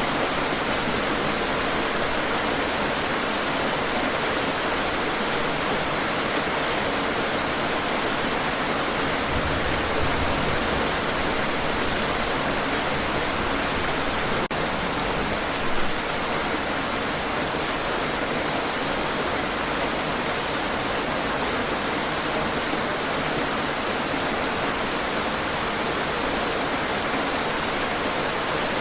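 Rain falling steadily, an even hiss of raindrops.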